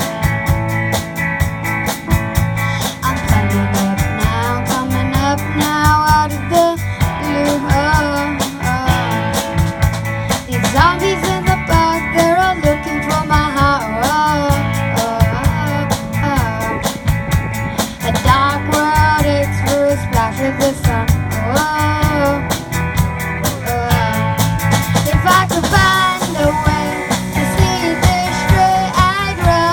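A rock band playing a song, with a drum kit keeping a steady beat under guitar and a sung melody that slides up and down in pitch.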